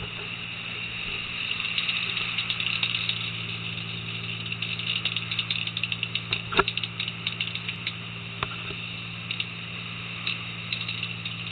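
Fishing boat's engine running with a steady hum under rapid, ratchet-like clicking from the line wheel at the rail as the line is worked in. There is a sharp knock about midway and a lighter one shortly after.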